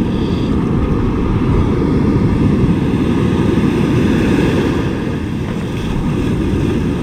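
Wind buffeting the microphone on an open surf beach, a loud, steady rumble, with the wash of surf mixed in.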